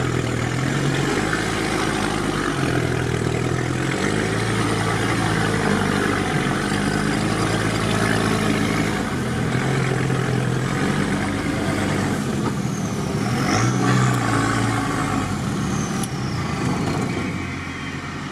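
Off-road 4x4's engine running at low speed as it crawls along a muddy, rutted track, its note rising and falling in steps with the throttle, heard from inside the vehicle.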